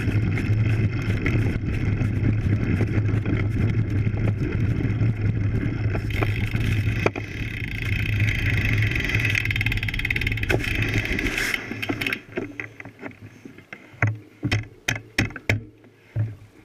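Road bike riding up a steep dirt road, heard from a camera mounted on the bike: a steady rumble and rattle of the tyres and frame over packed dirt and gravel, with wind noise. About twelve seconds in, the rumble drops away and a run of sharp knocks follows.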